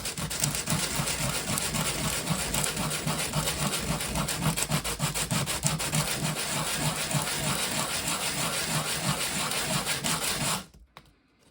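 A replacement trigger part for a Makita DTD152 impact driver being rubbed against sandpaper in rapid repeated strokes. It is being sanded thinner and narrower so the sticking forward/reverse selector can move freely. The scraping stops abruptly about ten and a half seconds in.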